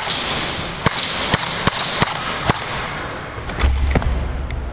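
Airsoft guns firing: a dozen or so sharp cracks at irregular intervals over a steady hiss. A low rumble comes in near the end as the camera is jostled.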